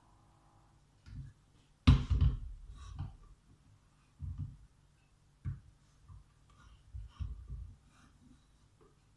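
A sharp knock about two seconds in, then several softer dull thumps and light clicks at irregular intervals, like objects being set down and handled on a counter.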